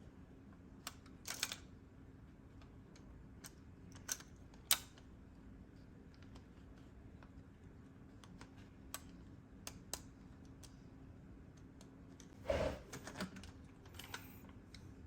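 Hard plastic parts of a toy transformation belt being handled: scattered light clicks and taps, with a brief louder rustle about twelve seconds in, over a faint steady hum.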